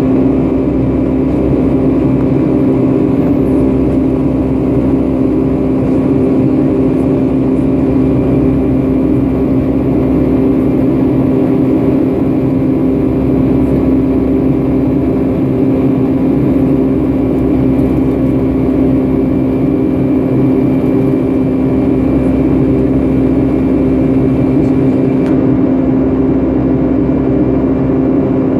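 Steady, loud cabin drone of a Boeing 757-300 jetliner under engine power, with a constant low hum and no change in pitch.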